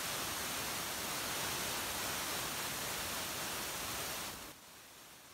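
Steady, even hiss with no distinct events, cutting off suddenly a little over four seconds in to a much fainter hiss.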